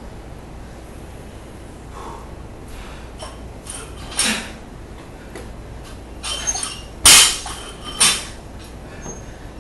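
Loaded barbell clinking and clanking as it is snatched: metal change plates and bumper plates rattle against the bar's sleeves. Several light clinks are followed by two sharp, loud clanks near the end.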